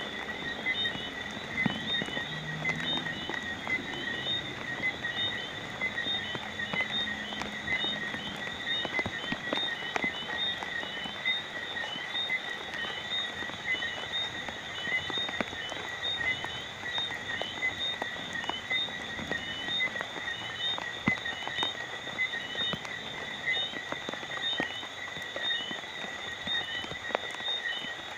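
Steady night rain with scattered individual drips, under a continuous high-pitched, rapidly pulsing animal chorus.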